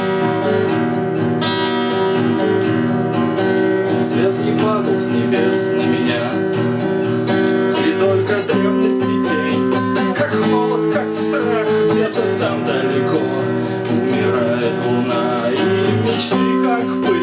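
Music: acoustic guitar strumming chords, with a wavering melody line over it in the middle of the passage.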